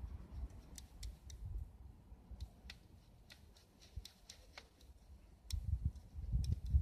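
Smouldering wood embers crackling: faint, sharp, irregular ticks and pops, over a low rumble on the microphone that grows stronger near the end.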